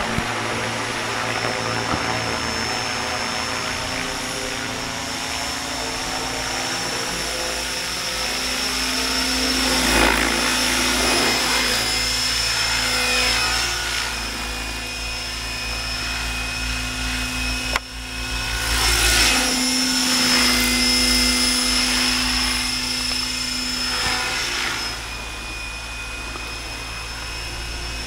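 Radio-controlled model helicopter flying overhead: a steady high-pitched whine from its motor and rotors, with rushing swells as it passes about ten seconds in, again around nineteen to twenty seconds, and once more near twenty-four seconds, getting a little quieter near the end.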